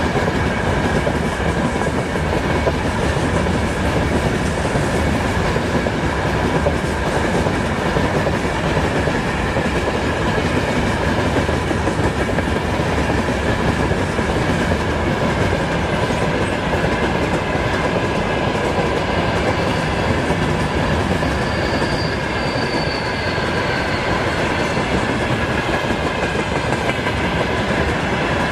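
Freight train wagons rolling past at speed, wheels clattering steadily over the rails, with a thin steady squeal of wheel on rail riding above the rumble.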